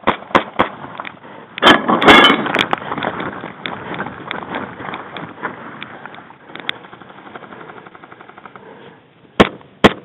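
Airsoft gunfire in a skirmish: sharp cracks near the start, a loud clattering scuffle about two seconds in, then a rapid, even rattle of automatic fire around seven to nine seconds and two sharp shots near the end.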